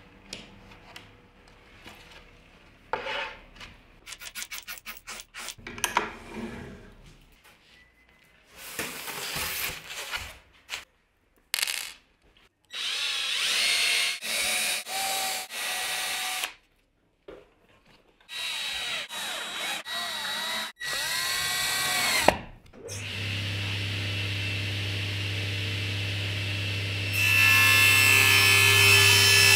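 Wooden boards are slid and set down, then a cordless drill drives screws in several short runs, its whine rising and falling. From about three-quarters of the way in, a table saw motor runs with a steady hum, and for the last couple of seconds it gets louder as the blade cuts through a board.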